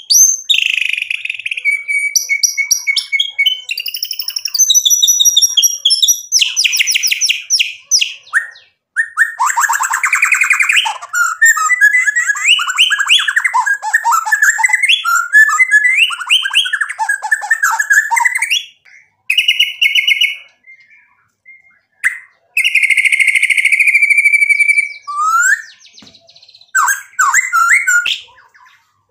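White-rumped shama singing a long, varied song: clear whistled notes, rapid trills and harsh rattling phrases, with a pause of about three seconds past the middle before a long held whistle.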